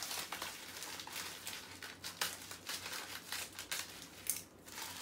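Thin plastic mailer bag crinkling and rustling in irregular crackles as it is cut open with scissors and handled, with the bubble-wrapped package inside rustling against it.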